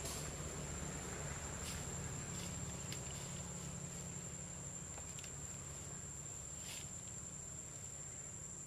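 Steady high-pitched insect drone, a cricket- or cicada-like single tone that holds unbroken, over a low outdoor hum, with a handful of brief soft ticks or rustles scattered through it.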